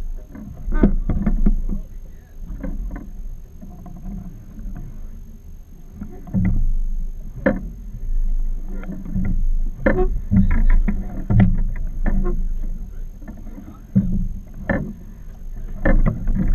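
Water slapping against the hull of a small drifting fishing boat, with irregular knocks and clunks on deck and a constant low rumble.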